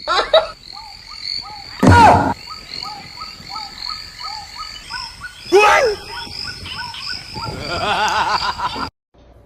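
Frogs croaking in a regular series of short calls, about two a second, over a faint steady high drone. Two louder calls slide downward, about two and five and a half seconds in.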